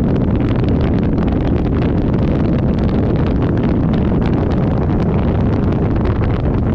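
Dodge Ram 3500 pickup driving on a dirt road, heard from a hood-mounted camera: steady, loud wind rumble on the microphone over the low drone of the truck and its tyres, with frequent small ticks.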